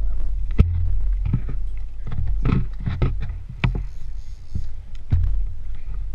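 A small boat on the water: a steady low rumble with irregular knocks.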